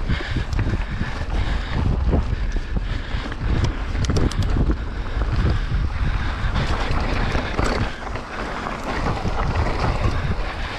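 Wind buffeting the microphone of a mountain bike at speed on a dirt trail, with the rumble of tyres and frequent knocks and rattles from the bike over rough ground.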